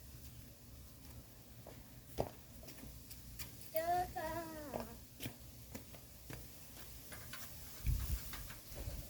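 Scattered light clicks and taps, with a brief high, wavering vocal call lasting about a second, roughly four seconds in, and a low thump near the end.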